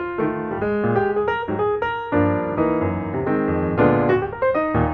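Background music led by piano, a steady run of notes with sustained chords.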